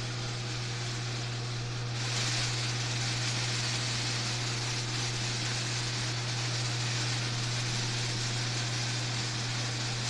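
Overhead electric garage door opener running with a steady hum as it raises a sectional garage door, with a louder rushing noise setting in about two seconds in. The door travels straight and true, not jerking, on its freshly re-hooked springs.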